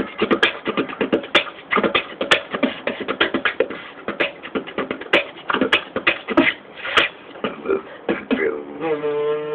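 A beatboxer making rapid drum-like kick, snare and click sounds with his mouth. Near the end he breaks into a steady held humming tone.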